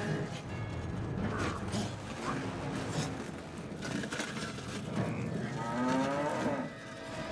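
A cow mooing, one long call about six seconds in, its pitch rising and then falling. Scattered clicks and rustles come before it.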